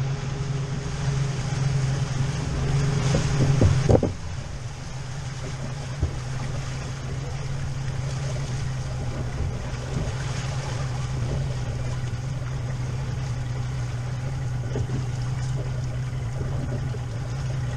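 Boat engine running steadily at low speed. For the first four seconds a louder rush of water and wind sits over it, ending abruptly with a knock about four seconds in.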